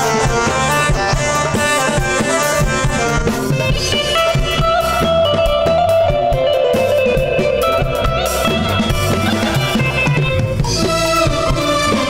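Live band playing an instrumental passage of an Arabic pop song: a keyboard melody over drum kit and bass, with one long held note in the middle.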